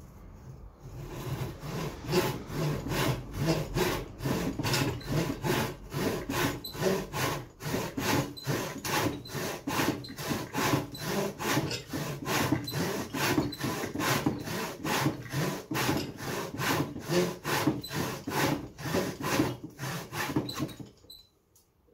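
Hand saw cutting kerfs across a wooden blank, in steady back-and-forth strokes at about two to three a second. The sawing starts about a second in and stops shortly before the end.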